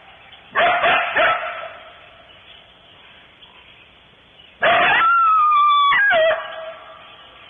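Coyote calling: two sharp barks about half a second and a second in, then a longer bark-howl of about a second and a half near the middle, its pitch sliding down and then breaking to a lower note.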